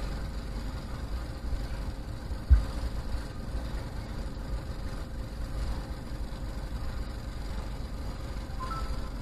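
Motorcycle riding noise through an action camera's microphone: a steady, fluttering low wind rumble with the engine running underneath. A single sharp low thump comes about two and a half seconds in.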